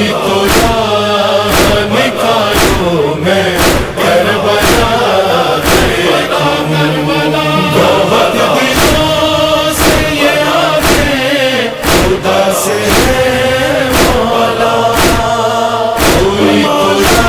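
Noha interlude: male voices chanting without clear words over a steady percussive beat, with a strong hit a little over once a second.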